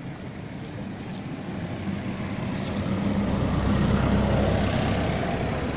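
Low engine hum of a motor vehicle growing louder over about three seconds, as if drawing near, then easing off a little near the end.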